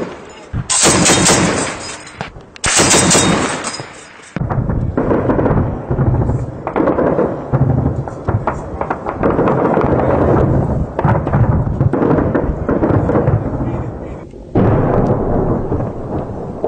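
Tripod-mounted heavy machine gun firing two long bursts in the first four seconds. After that comes a duller, continuous crackle of more gunfire, with a louder stretch starting near the end.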